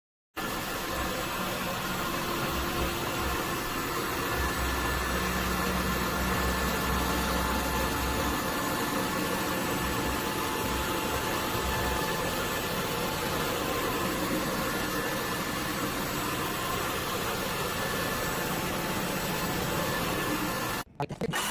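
Cordless wet-dry vacuum running steadily: an even hiss with a faint steady whine. It cuts in abruptly about half a second in and stops abruptly near the end.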